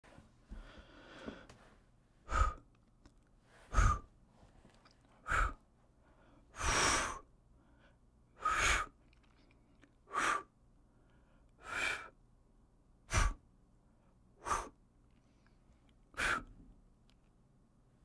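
A person blowing short puffs of air through pursed lips, as when blowing out candles. There are ten quick puffs about a second and a half apart, the fourth a little longer, after a softer breath at the start.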